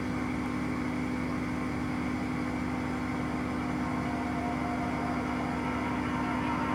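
Engine of a passing coaster running steadily, a continuous low drone with a constant hum.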